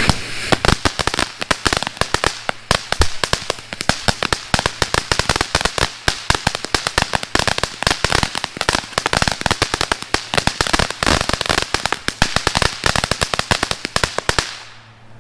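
Ground fountain firework crackling: a dense, rapid run of sharp pops and cracks as it sprays sparks, dying out near the end.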